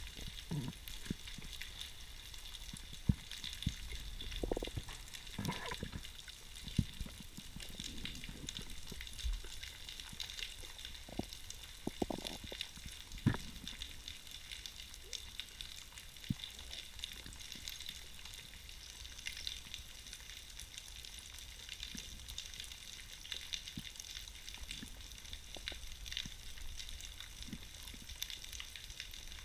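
Underwater ambience picked up by a camera in its housing: a steady crackling hiss with scattered sharp clicks and knocks.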